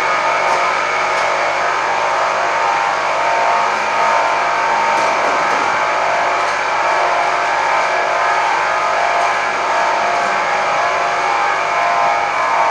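Steady mechanical drone of workshop machinery running without a break, with several steady tones in it and a few faint clicks.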